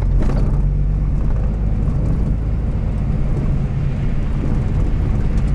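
Diesel engine of a DAF truck running with a steady low drone, heard from inside the cab.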